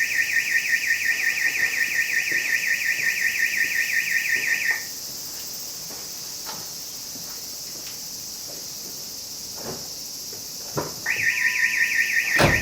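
Steelmate car alarm siren sounding a rapid warbling tone. It cuts off about five seconds in and starts the same warble again after a pause of about six seconds. A sharp click comes shortly before the end.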